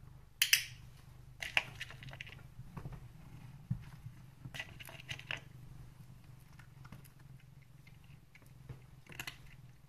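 A cat's claw being cut with small nail clippers: one sharp, loud snip about half a second in, followed by several quieter clicks and handling sounds, over a low steady hum.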